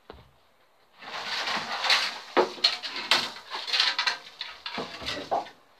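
Rummaging among stored things in a shed: a single knock at the start, then from about a second in a dense, irregular run of clattering knocks and rustling as objects are shifted around.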